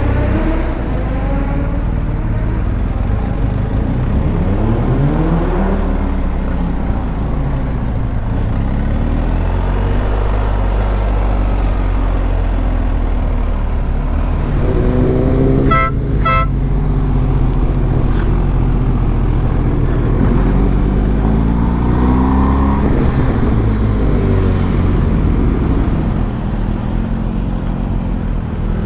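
BMW GS motorcycle's boxer-twin engine riding through city traffic, its pitch rising and falling several times as it accelerates and eases off. A vehicle horn beeps twice about halfway through.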